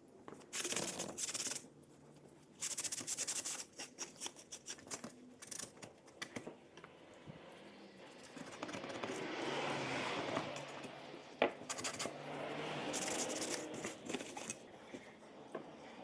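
Scratching and rubbing as instrument-cluster plastic parts are wiped and handled, in short loud scratchy stretches near the start and again late on, with a single sharp click partway through.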